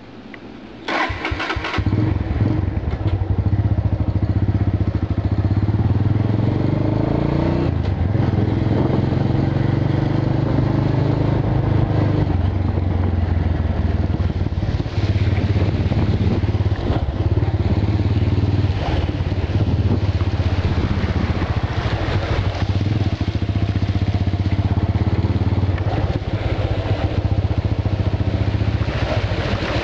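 Motorbike engine running steadily as the bike rides along, setting in about a second in.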